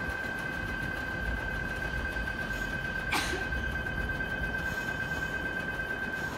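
A steady high-pitched electronic tone sounds unbroken and cuts off at the end. About three seconds in there is one short clack as the split-flap departure board turns over to blank.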